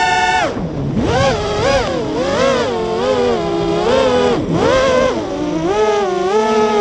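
Racing quadcopter's four brushless motors (Hobbywing XRotor 2205 2300kv on 5045 props) whining, the pitch swooping up and down with the throttle, dropping low sharply twice on throttle chops.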